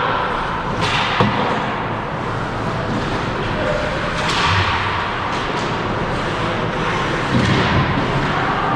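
Ice hockey play in a rink: skates scraping on the ice, with scattered knocks and thuds, the sharpest about a second in.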